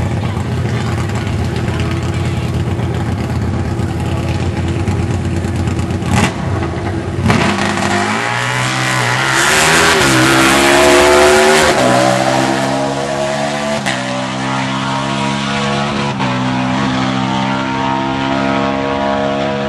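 Harley-Davidson V-Rod Destroyer drag bike's V-twin idling at the starting line, then launching about eight seconds in and revving hard up through three upshifts. It is loudest just after the launch and fades slightly as the bike pulls away down the strip.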